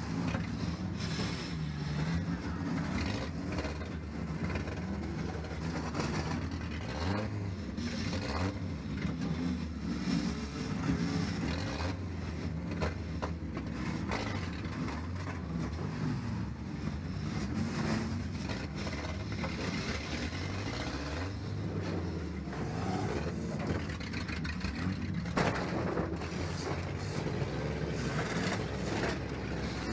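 1997 Ford Ranger's engine running and revving up and down repeatedly, heard from inside the cab, with frequent knocks and bangs of the truck's body on top.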